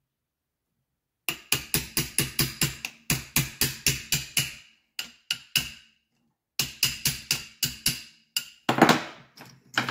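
Quick light hammer taps on metal, about five or six a second, in three runs with short pauses, then a heavier knock near the end. This is typical of driving the piston pin out of a scooter engine's piston with a hammer and punch.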